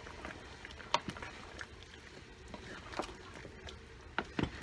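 A few short, sharp clinks and knocks of a utensil or lid against a cooking pot over a low steady background, with two close together near the end.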